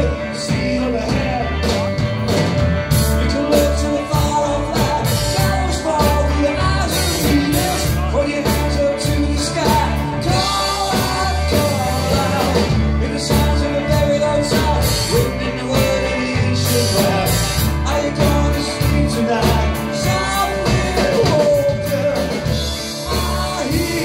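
Live rock band playing: electric bass, electric guitar and drums keeping a steady beat under a sung lead vocal.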